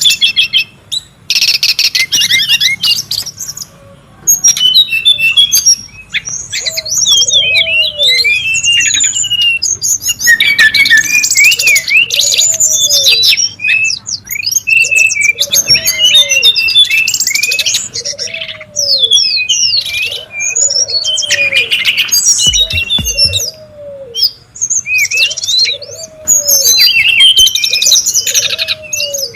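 Brown-chested jungle flycatchers singing and chattering noisily: dense, fast runs of high whistled and twittering phrases, with brief lulls. A low arched note repeats about every second and a half behind them from about seven seconds in.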